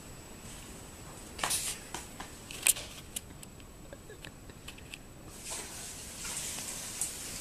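Soft rustling and scattered sharp clicks close to the microphone, with one louder click about two and a half seconds in: handling noise from a hand-held camera as a cat is petted up close.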